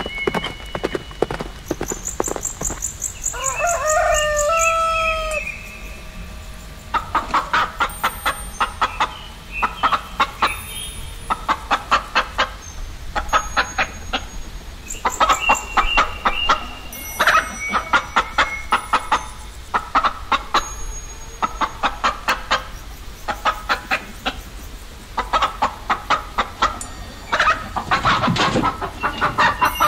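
A rooster crowing once, one long call a few seconds in, followed by domestic chickens clucking in quick runs of short notes.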